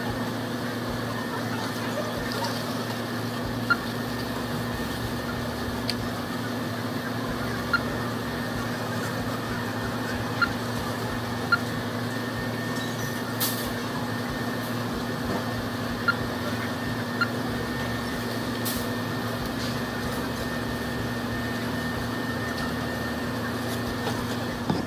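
Steady hum of a store's background machinery with a thin high tone over it, and a short blip every few seconds from an NCR self-checkout kiosk as items are scanned.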